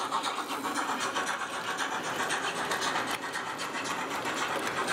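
H0-scale model trains rolling past on the track: a steady whirr of the running gear with light, irregular clicking of the wheels over the rails.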